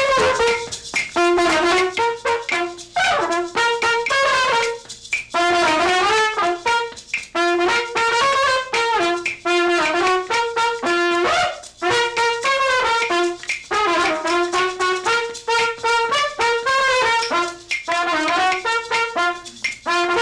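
A trumpet plays a lively tune in short phrases, hopping between two low notes and climbing in quick runs, with maracas shaking along.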